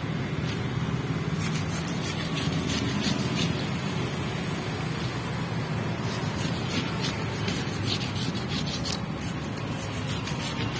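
A knife blade scraping the large scales off a parrotfish, in a run of irregular rasping strokes, over a steady low rumble of background noise.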